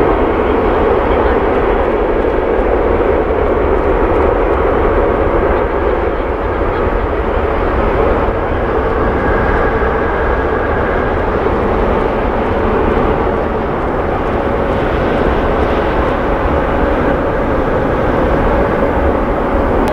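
Boeing 777-200ER's twin jet engines running as the airliner lines up and begins its takeoff roll, heard from behind: a loud, steady rushing jet noise with a faint steady whine.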